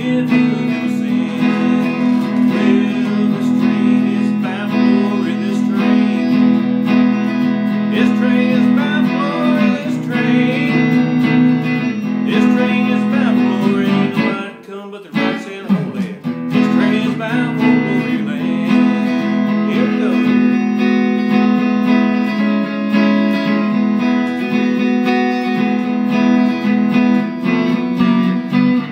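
Electric guitar playing a bluesy gospel tune, with a man singing along at times; the music drops out briefly about halfway through before resuming.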